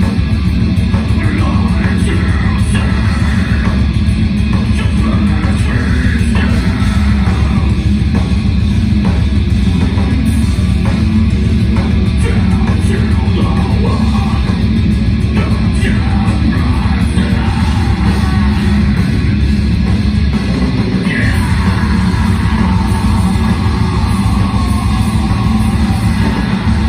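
Death-doom metal band playing live: distorted electric guitars, bass and drums, loud and dense, heard from the audience in the hall.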